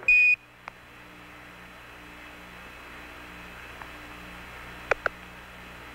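A short Quindar tone beep just as Mission Control's radio call ends, marking the release of the ground transmitter. Then a steady hiss of the air-to-ground radio channel with a faint hum, and two sharp clicks about five seconds in.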